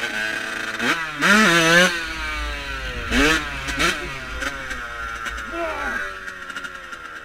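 Dirt bike engine revving up and down under the rider's throttle, with louder rising revs a little over a second in and again about three seconds in.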